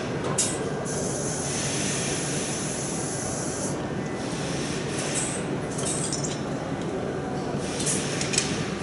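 Steady machinery noise of a factory hall with short bursts of air hiss as a pneumatic lifting arm is worked. A sharp metal clink comes near the end as its hook is set on the load.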